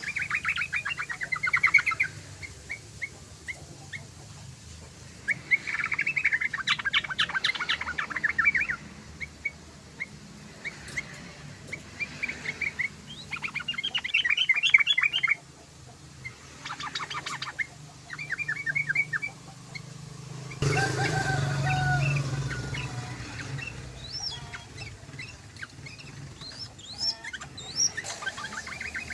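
Yellow-vented bulbul (trucukan) song: bursts of fast, rattling chatter, repeated several times with short pauses between them. About two-thirds of the way in comes a noisier stretch with lower, sliding notes, followed by softer scattered chirps.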